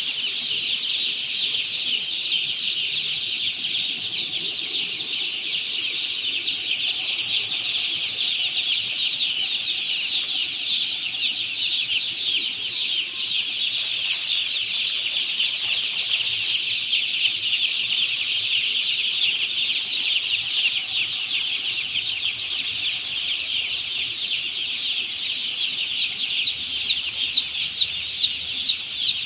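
A large flock of day-old chicks peeping continuously, hundreds of high chirps overlapping into a dense chorus. Near the end a run of louder peeps stands out.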